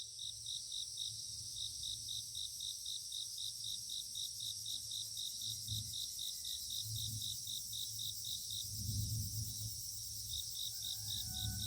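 Chorus of crickets and other grass insects at dawn: a steady high, fast chirring from many insects, with one insect giving evenly spaced chirps about four a second that stops briefly early on and again for about two seconds in the last third. A low rumble lies underneath.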